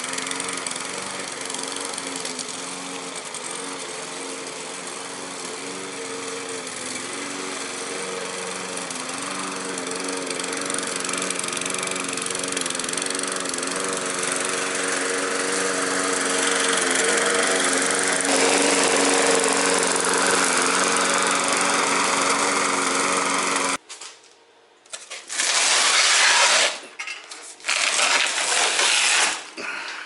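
Remote-controlled lawn mower running steadily as it drives through high, wet grass, growing louder over the middle of the stretch. The running sound cuts off suddenly about 24 seconds in, followed by two loud, noisy bursts.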